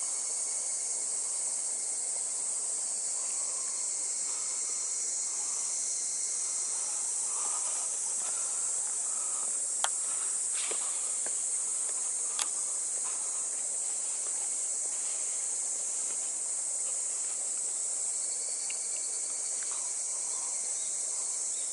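Insects chirring in a steady, high-pitched drone, with two brief sharp clicks about halfway through.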